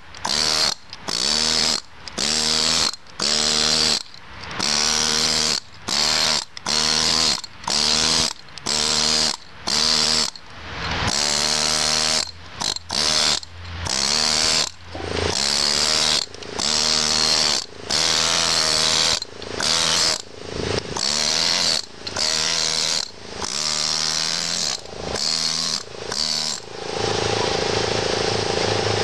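Pneumatic carving chisel hammering on kersantite stone in short bursts, about one a second, the tool stopping and starting as the carver chips at the edge of a carved block.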